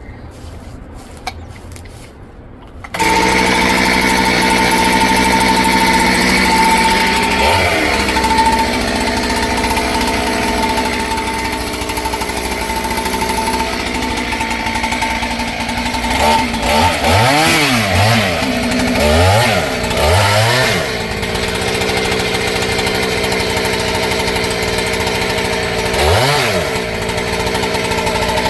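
Two-stroke chainsaw running at high revs, starting abruptly about three seconds in after a quieter stretch. Its engine speed drops and climbs back several times, as a saw does when it bogs under load in a cut or the throttle is eased off.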